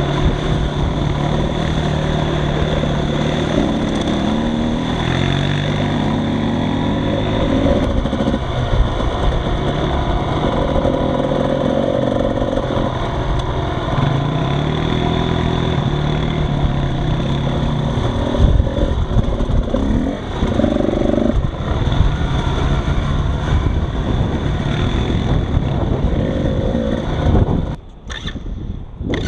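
Engine of an off-road vehicle, heard close from a rider-mounted camera, running continuously under load, its pitch rising and falling with throttle and gear changes. Wind and trail noise lie underneath. The sound drops sharply for about a second near the end.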